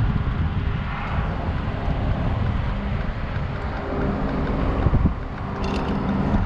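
Wind buffeting the microphone with a steady low rumble, a faint hum under it. One short knock about five seconds in.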